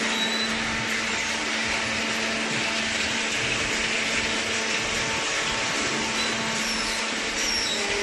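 Hydraulic paper baler's electric motor and pump running steadily, a constant whirring with a low steady hum. A few short high tones come near the end.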